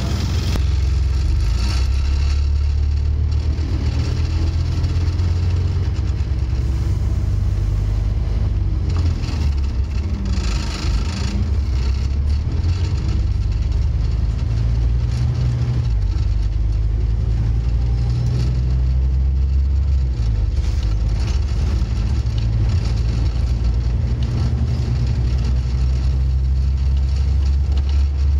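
Scania N230UD OmniCity bus's five-cylinder diesel engine heard from inside the bus as it drives, a steady low growl whose note steps up and down several times as the bus pulls along and eases off.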